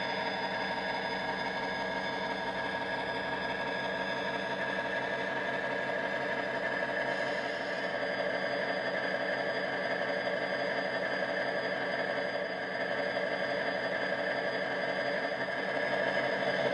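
Model Class 57 diesel locomotive's ESU LokSound decoder playing its engine sound through an EM1 speaker: the sampled EMD 645 diesel running steadily with a fast low beat, with a slight change in its note about seven seconds in.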